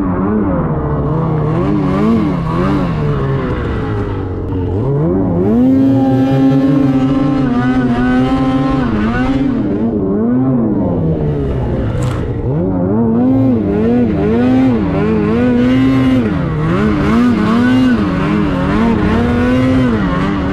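2023 Ski-Doo Freeride 146 snowmobile's 850 two-stroke engine revving up and down over and over under load in deep powder, its pitch swinging with the throttle and holding high for a second or two at a time. A brief sharp click about twelve seconds in.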